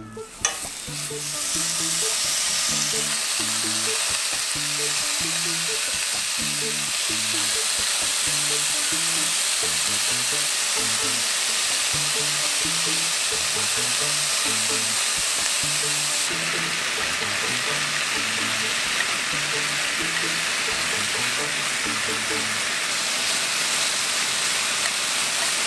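Thin-sliced pork belly sizzling steadily as it fries in a nonstick pan and is stirred with chopsticks. The sizzle starts about half a second in. A quiet plucked background tune plays beneath it.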